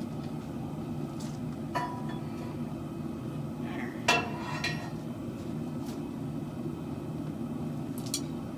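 A few sharp metallic clinks of steel on steel, the loudest about four seconds in, over a steady low hum.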